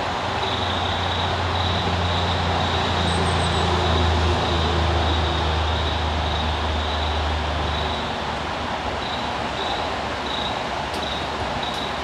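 Steady rush of water pouring through the creek's tailwater, with a low engine-like hum that swells to a peak about four seconds in and dies away about eight seconds in.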